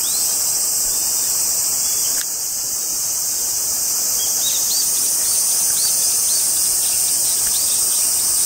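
Steady, high-pitched chorus of insects. Through the second half, short high chirps are repeated about twice a second.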